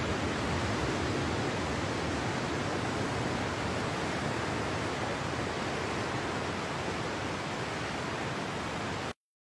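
Steady rush of ocean surf, with no distinct waves or other events, cut off abruptly near the end.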